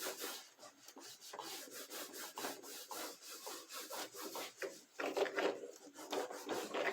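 A cloth wiper rubbed back and forth over an electronic piano keyboard to clean it, in a run of short, repeated wiping strokes that get a little louder near the end.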